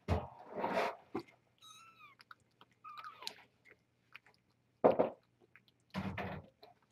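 Cat eating, with chewing and crunching in short bursts. Two brief high-pitched kitten mews sound about two and three seconds in.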